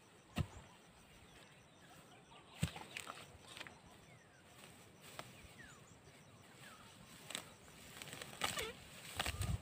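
A long-handled digging tool chopping into soil and grass with a few sharp knocks, spread out and separated by quiet stretches, followed by softer scuffs as the loosened soil is worked by hand.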